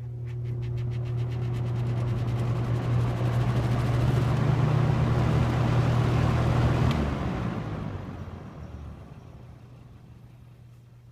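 Superlectric box fan with its plastic-shelled motor switched on: a rush of air with a low motor hum builds over a few seconds and holds. About seven seconds in, a click cuts the hum and the air noise dies away as the blades spin down.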